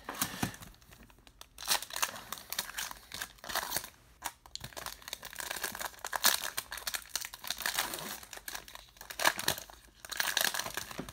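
Plastic wrapper of a baseball card pack crinkling and tearing as it is ripped open, in irregular bursts of crackle, loudest about a second and a half in, around six seconds in, and again near the end.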